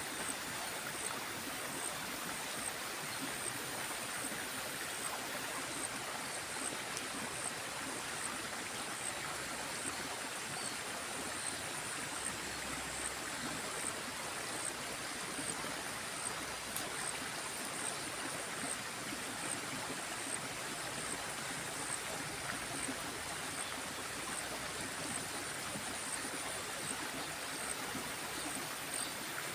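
Small river flowing steadily: an even rush of running water. A faint high pulse repeats about every half-second over it.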